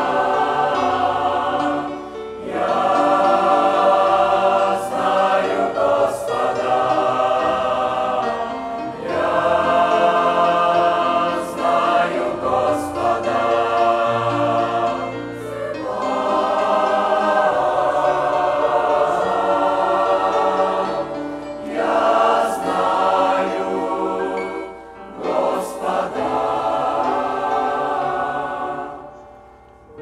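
Mixed youth choir singing a Russian-language hymn in several long phrases with short breaks between them. The singing trails off near the end.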